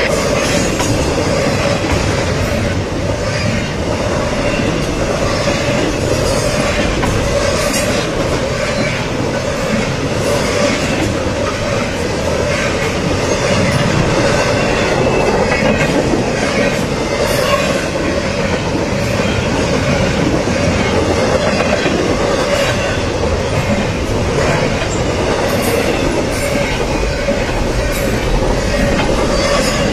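Freight train cars rolling steadily past, a loud continuous rumble of steel wheels on rail with scattered clicks over the rail joints.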